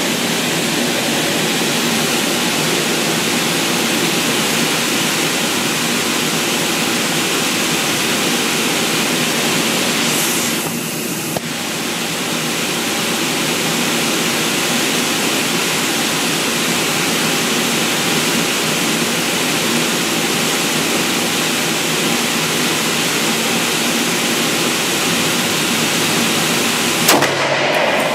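A steady, loud hiss of rushing noise with no gunshots, and one brief sharp click near the end.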